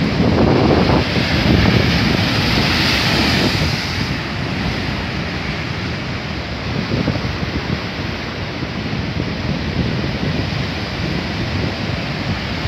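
Storm-driven ocean surf crashing and churning against a rocky shore, with wind buffeting the microphone. A big wave breaks in the first few seconds, then the foaming wash carries on steadily.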